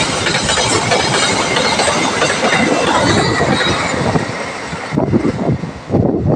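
Train passing close by, its wheels clattering over the rails, the noise falling away after about four seconds.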